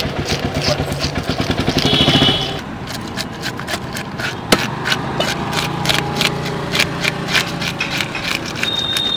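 Fish scales being scraped off a whole carp with a hand scaler on a wooden block: rapid scraping strokes, several a second, with one sharper knock about four and a half seconds in. An engine runs under the first two seconds or so and then drops away.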